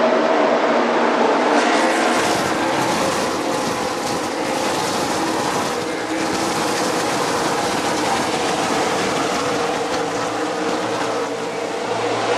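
A full field of NASCAR stock cars racing past at speed, their V8 engines merging into one loud, continuous drone that holds steady as the pack runs by and on around the track.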